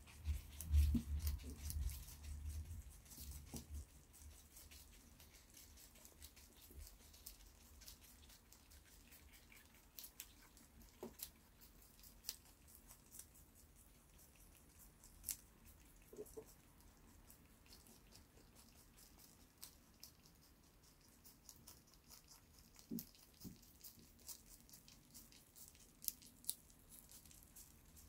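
A lop-eared rabbit chewing and tearing at leafy greens: a quick run of faint, crisp crunching clicks. A few low thumps come in the first three seconds.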